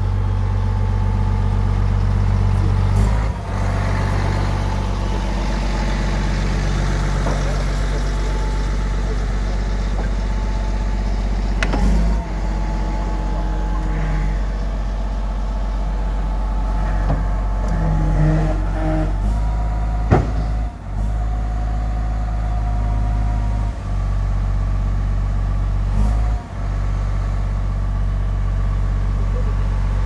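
Diesel engine of a Komatsu D85EX-15 crawler bulldozer idling steadily, with a few short clicks and dips in level.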